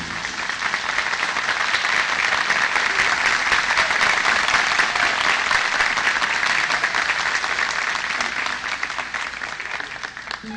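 Studio audience applauding at the end of a song: dense clapping that holds steady and then fades away over the last few seconds.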